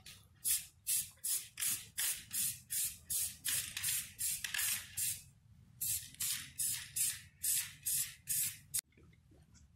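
Aerosol spray paint can sprayed in quick short bursts, about three hisses a second, with a brief pause about halfway through; the spraying stops abruptly near the end.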